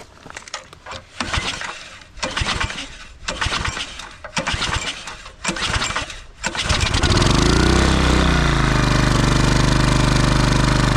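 Small log-splitter engine being pull-started with its recoil starter: several separate pulls about a second apart that don't catch, then it fires about six and a half seconds in, revs up and settles into steady running. This is its first start after a tune-up with a new pull starter and fuel line.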